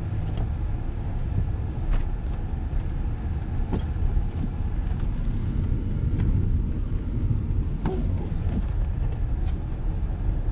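Steady low rumble of a vehicle driving on a highway, heard from inside the cabin, with a few faint ticks.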